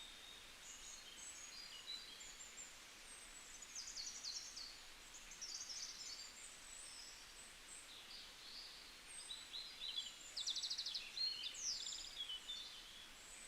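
Small birds chirping and twittering: many short, high chirps and quick trills overlapping, faint, and busiest about ten to twelve seconds in.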